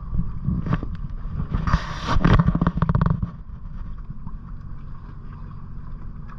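Sea-Doo Switch boat's engine and jet drive running at low speed: a steady low rumble with a thin steady whine above it. About one and a half seconds in there is a loud rushing burst that lasts over a second.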